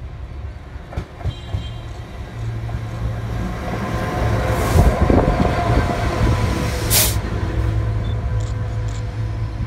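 Freightliner Class 66 diesel locomotive passing close by, its two-stroke EMD V12 engine giving a steady low drone that grows louder to a peak near the middle as it goes past. There is a brief hiss about seven seconds in.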